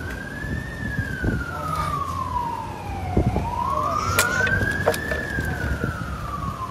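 Emergency vehicle siren in a slow wail, its pitch rising and falling in long sweeps, about one and a half cycles, over a low background rumble with a few short knocks.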